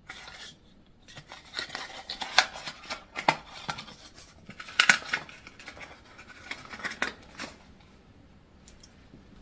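Small cardboard box being opened and its packaging handled: cardboard scraping and rustling with many sharp clicks and taps, dying away after about seven and a half seconds.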